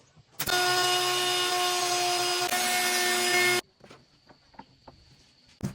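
Power tool running on wood for about three seconds, a steady whine with hiss, then cutting off sharply.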